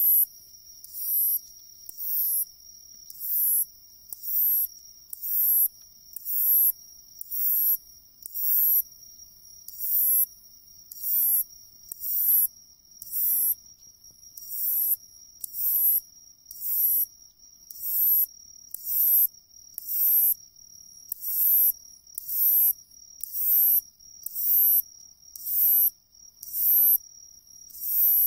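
Hayashi-no-umaoi katydid (Hexacentrus japonicus) singing: a short, very high chirp repeated evenly about once a second, over a steady high tone underneath.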